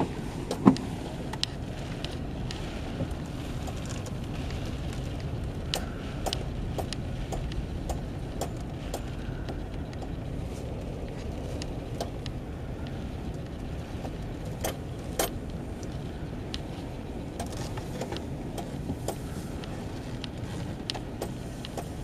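Inside a slowly moving car: a steady low rumble from the engine and tyres, with scattered sharp taps and ticks and one louder knock about a second in.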